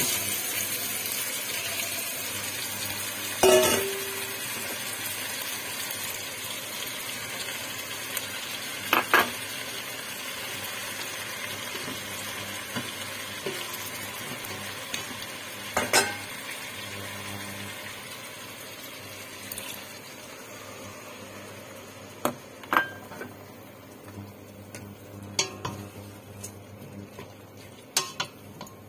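Chicken sizzling in a hot stainless steel pot, the sizzle strongest as liquid is poured over it and slowly dying down. Several sharp knocks of utensils against the pot come through it as the food is stirred with a wooden spatula.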